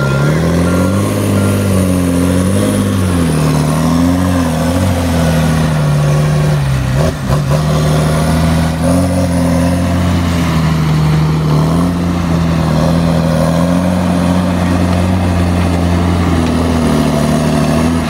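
Tigercat 635D skidder's diesel engine working close by, its revs rising and falling for the first several seconds, dipping about seven seconds in, then running steadily. A reversing alarm beeps briefly at the start.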